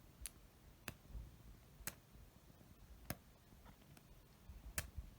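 Five faint, sharp clicks, spaced irregularly, over near silence.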